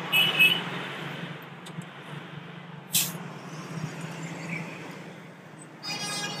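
Cab noise inside a moving fire apparatus: a steady engine drone with road noise. There is a brief loud sound just at the start and a sharp click about three seconds in.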